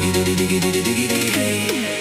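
Background music: electronic music with sustained synth notes and a steady beat, the bass sliding down in pitch near the end.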